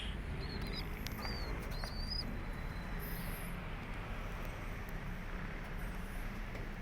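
Pigeons in a loft: a few short high chirps in the first two seconds, over a steady low background hum.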